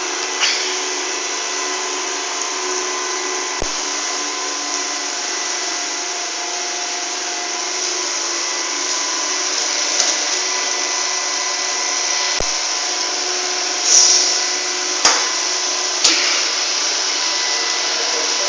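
Robot vacuum cleaner running with a steady whir and a few fixed tones. Several short knocks and clicks come through it at irregular moments, the loudest about 14 seconds in.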